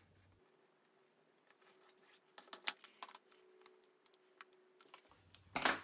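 Small scissors trimming a folded triangle of paper, with paper handling: scattered light clicks and snips, then one louder short crinkle near the end.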